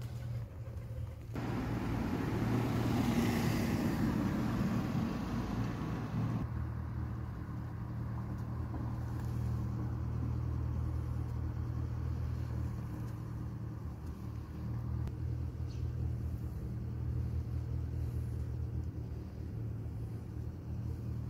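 A motor vehicle passes on the street about a second in and is gone by about six seconds, its noise falling in pitch as it goes by, over a steady low hum that runs throughout.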